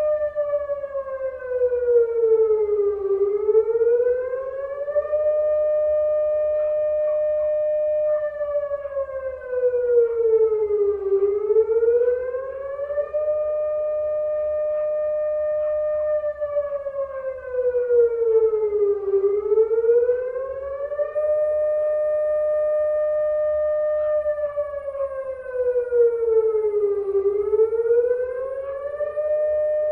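Air-raid siren wailing: a steady high note that sags in pitch and climbs back again four times, about every eight seconds.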